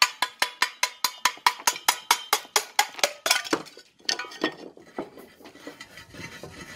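A steel mason's trowel tapping rapidly and evenly, about four metallic clinks a second with a short ring, stopping about three and a half seconds in. Softer scraping and handling of the brick and board follow.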